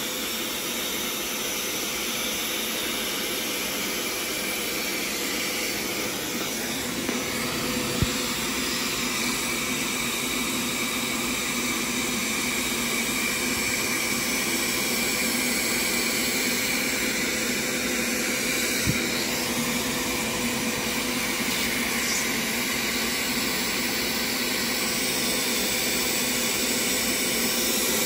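Hoover PowerScrub XL carpet cleaner running steadily, its motor giving a constant whine while the upholstery hand tool is worked over a wet fabric couch cushion. A faint click sounds about eight seconds in and another a little before halfway.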